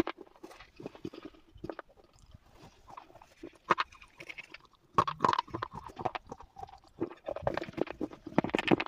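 Slate pencils being bitten and chewed close to the microphone: irregular sharp crunches and snaps. They are sparse for the first few seconds and come thicker from about five seconds in.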